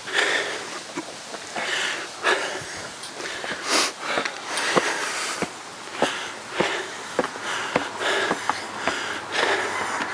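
Heavy breathing close to the microphone from someone out of breath while climbing concrete stairs, with the short taps of footsteps on the steps about every half second to second.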